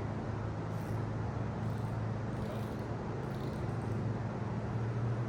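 An engine droning steadily with a low, even hum.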